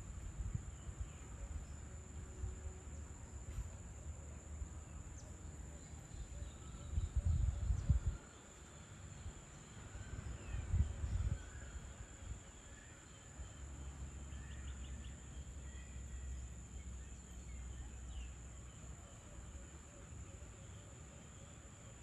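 Insects keeping up a steady high-pitched drone, with faint scattered bird chirps. A low rumble swells twice, about a third and halfway through.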